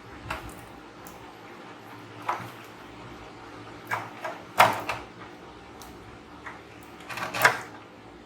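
Several short, sharp clicks and knocks of small tools and parts being handled on a workbench, with a loud cluster just after the middle and another near the end.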